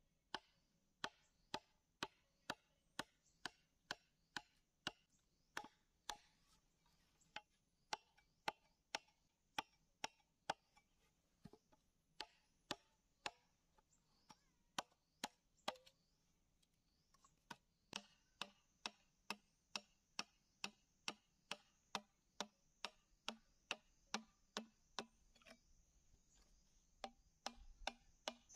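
Machete chopping into a green bamboo tube: sharp knocks about two a second, with two brief pauses along the way.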